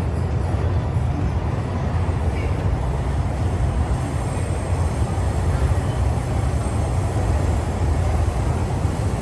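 Steady low rumble of city street ambience, dominated by vehicle noise, with an even level and no distinct events.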